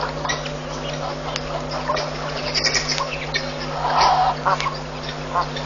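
Wild birds calling at a waterhole: a mix of short calls throughout, with a louder one about four seconds in, over a steady low hum.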